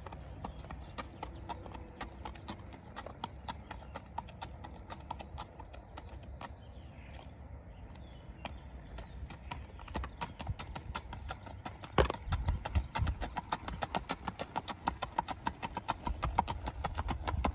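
A horse's hooves clip-clopping on an asphalt road under a rider, a quick, even beat that grows much louder about twelve seconds in as the horse comes closer.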